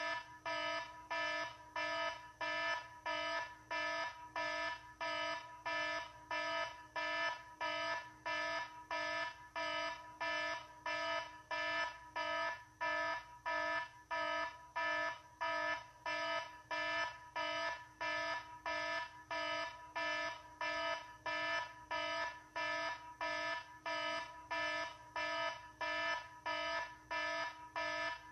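Electronic alarm beeping in an even, unbroken pattern, about two beeps a second, each beep a buzzy tone with several pitches layered together.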